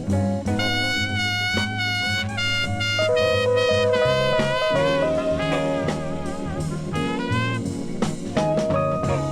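Blues band playing an instrumental passage: horns hold notes with vibrato over a walking bass line and drums.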